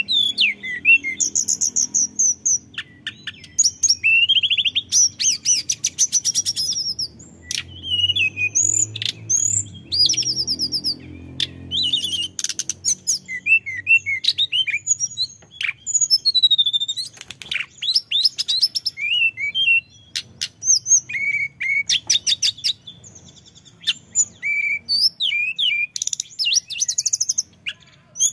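A male hill blue flycatcher (tledekan gunung) singing without let-up: a long run of fast, varied whistled phrases and rapid rolling trills, broken by short pauses.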